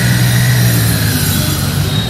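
Triumph Street Triple 765's inline three-cylinder engine running at low revs as the bike pulls away, its steady note fading a little towards the end as it moves off.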